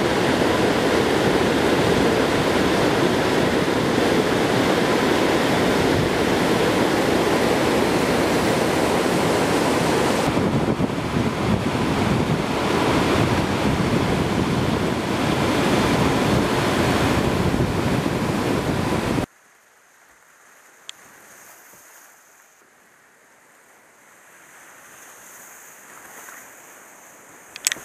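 Whitewater rapids rushing, a loud steady noise of churning water. About two-thirds of the way through it cuts off abruptly, leaving only a faint high hiss.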